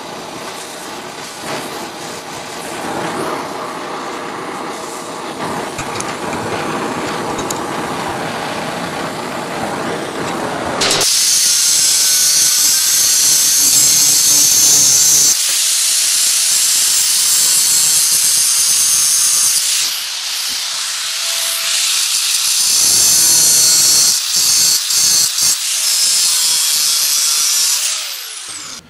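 Oxy-acetylene torch flame hissing steadily while it heats steel angle iron. About eleven seconds in, an angle grinder starts suddenly against the steel, a loud high-pitched grinding that stops and restarts several times, in short bursts near the end.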